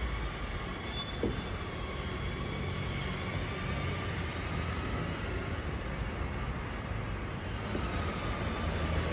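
Steady low rumble of outdoor city background noise, with a faint click about a second in.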